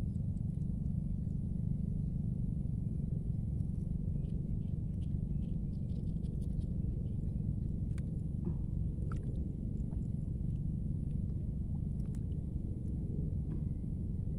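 Wind buffeting the microphone as a steady low rumble, with faint scattered clicks and ticks from hands handling a fishing hook, line and pole rod.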